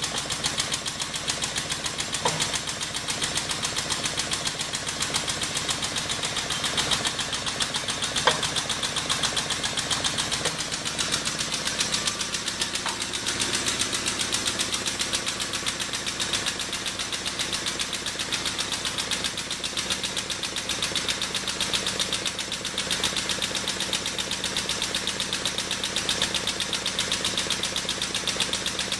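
Air-over-hydraulic pump running with a steady rapid pulsing as it drives a hydraulic ram that pushes a broach through a steel hub to cut an internal keyway. A sharp tick sounds about eight seconds in.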